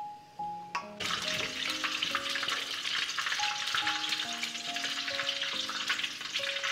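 Potato and eggplant pieces going into hot cooking oil: a dense crackling sizzle starts suddenly about a second in and keeps on steadily. A simple background melody plays underneath.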